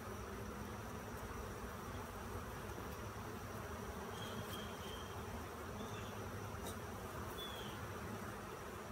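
Colony of Italian honey bees buzzing around an open hive, a steady low hum.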